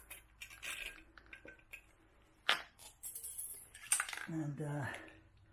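Light metallic clinks and knocks from handling the steel cylinder studs and a metal aerosol can, with a short hiss about three seconds in.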